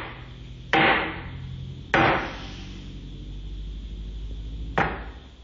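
Broom head slamming down on a tiled floor to squash a wolf spider, three hard separate strikes, the last one near the end.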